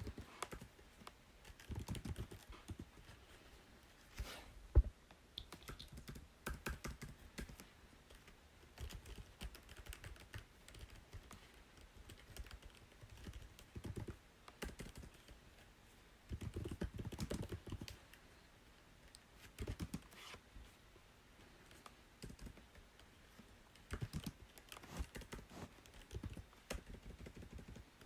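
Typing on a computer keyboard in bursts of rapid key clicks with short pauses between them, and one sharper, louder knock about five seconds in.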